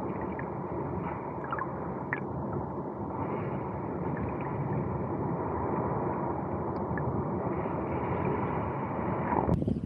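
Muffled underwater sound from a camera held under shallow seawater: the dull wash of moving water with no highs, with a few faint ticks. Near the end the camera comes out of the water and the sound suddenly opens up into open-air wind noise.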